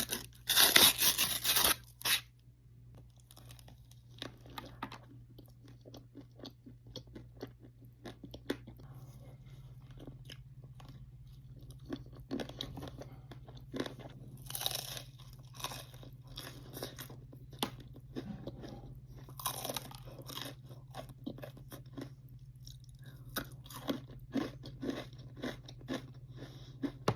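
Close-up chewing and crunching of a Reese's peanut butter ice cream cone, with loud crunching bites in the first two seconds and again at about 15 and 20 seconds in. A faint steady low hum runs underneath.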